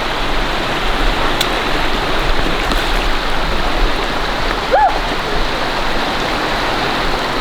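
Stream water rushing steadily, with a short rising-then-falling tone about two-thirds of the way in.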